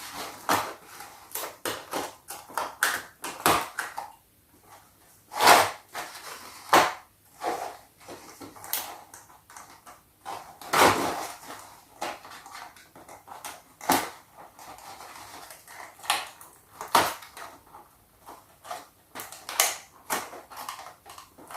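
A cardboard toy box being cut open and handled: irregular clicks, snips and short scrapes of the cardboard packaging.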